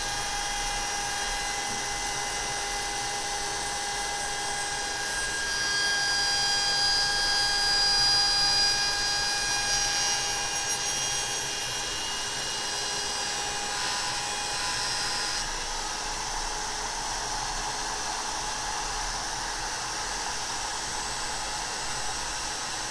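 Small router running at full speed with a steady high whine, its bearing-guided flush-trim bit cutting a wooden pattern to match a template. It grows louder for several seconds in the first half.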